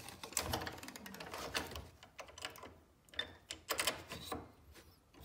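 Hand handling at a stopped scroll saw: irregular clicks, taps and paper rustles as a stenciled stack of plywood slides on the metal table and the blade is re-threaded and clamped for the last interior cut.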